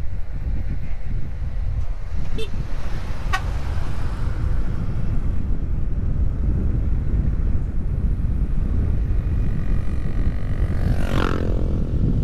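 Wind buffeting the microphone over the low running of a motorcycle riding along a country road. Two very short high blips come a second apart about two seconds in, and a pitched sound slides down in pitch about eleven seconds in.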